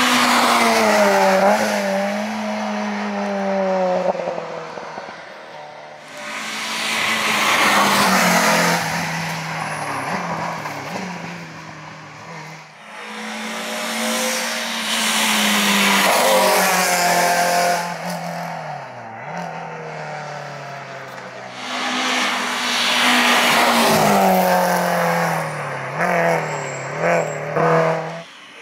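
Racing car engine at full throttle on a hill-climb course, its pitch climbing and dropping with each gear change and swelling loud four times as it comes by. Near the end there is a quick series of sharp revs, typical of throttle blips on downshifts into a bend.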